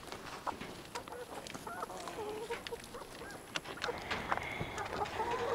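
Chickens clucking and calling in short, moderately quiet bursts, with scattered light taps and rustles among them.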